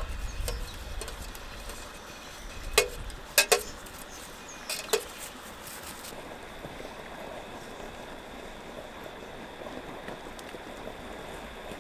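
Metal spoon stirring soup in a stainless steel camp pot, with several sharp clinks against the pot a few seconds in, two of them in quick pairs. A steady faint hiss underlies it.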